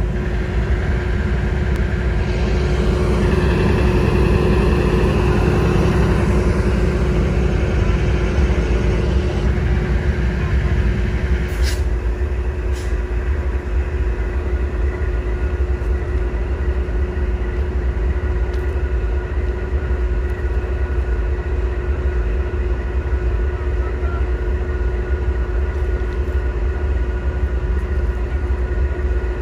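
Diesel freight train's steady low rumble with a constant hum, heavier in the deep range for the first ten seconds or so, with two brief clicks around twelve seconds in.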